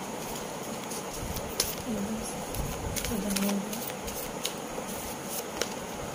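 A deck of tarot cards being shuffled by hand, with scattered soft clicks and snaps of the cards. The loudest snap comes about a second and a half in. Two short low tones, like a hum or a coo, come about two and three seconds in.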